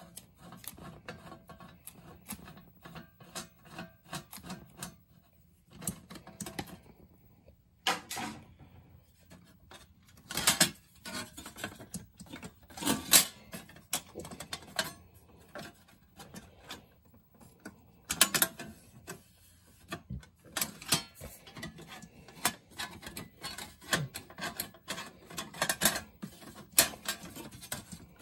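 A screwdriver works the screws of a Commodore 1526 printer's sheet-metal shield, and the loose metal cover plate clatters and knocks against the plastic case as it is handled off. The clicks and knocks come irregularly, in louder clusters through the middle and near the end.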